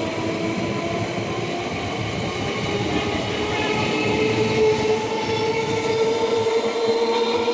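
Eastern Railway electric multiple unit (EMU) local train passing close by: steady running noise of the wheels on the rails, with a whine of several tones that climbs slightly in pitch and grows a little louder in the second half.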